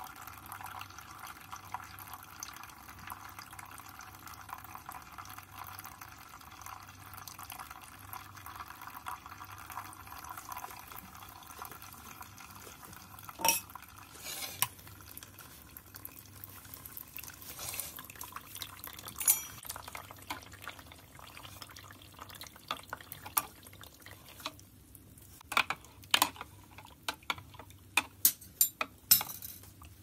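A thin stream of hot water from a gooseneck kettle pouring onto coffee grounds in a paper filter dripper, a steady trickle for about the first twelve seconds. Then the pour stops and scattered sharp clicks and clinks follow, coming faster near the end.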